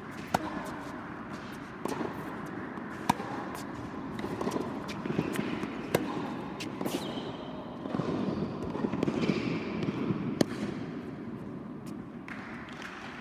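Tennis rally on an indoor court: rackets striking the ball and the ball bouncing, a few sharp hits several seconds apart that echo around the hall.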